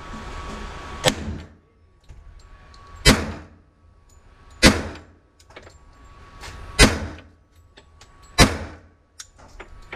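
Detonics Scoremaster .45 ACP 1911 pistol fired five times in slow, aimed fire, one shot every one and a half to two seconds, each report ringing off the walls of an indoor range. The rounds are handloads of a 230-grain FMJ bullet over 5 grains of Bullseye powder.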